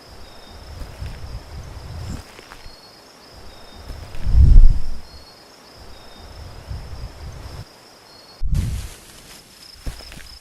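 Nature ambience: insects chirring in one steady high tone, over irregular low rumbles and thuds, loudest about four and a half seconds in. Near the end the ambience cuts to a new clip.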